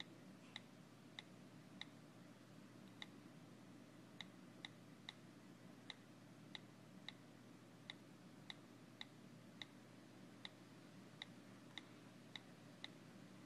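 iPhone 4 on-screen keyboard key clicks: one short, faint tick for each letter tapped, about twenty in all, coming unevenly every half second to a second as an email address is typed.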